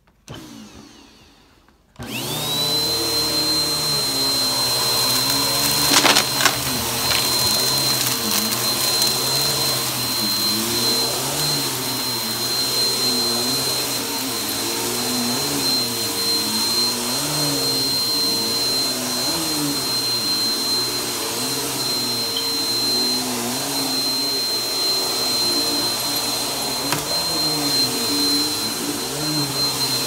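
Upright vacuum cleaner switched on about two seconds in, its motor spinning up to a steady high whine. It is then pushed back and forth over carpet, the lower sound swelling and falling with each stroke. A sharp crack comes about six seconds in.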